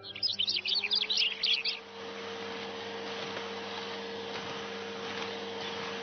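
Rapid bird chirps for about the first two seconds. Under them a vacuum cleaner motor comes in, rising slightly in pitch, then runs with a steady hum and rushing air.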